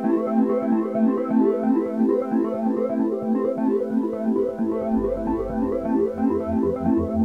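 Background music: electronic keyboard or synthesizer playing quick repeating notes, with a low pulsing bass coming in about five seconds in.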